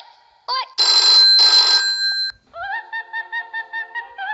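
Novelty phone ringtones: a short chirp, then a telephone bell ringing twice in quick succession, then a warbling electronic tone pulsing about five times a second.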